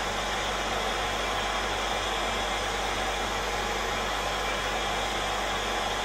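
Zubr FT-P1600 1600 W heat gun running steadily on its first, lower setting (350 °C): an even rush of air from its fan with a faint steady hum.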